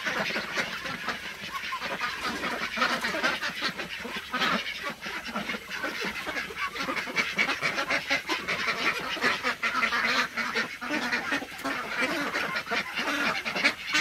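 A flock of domestic ducks quacking nonstop, many birds calling over one another in a dense chatter as they beg for food.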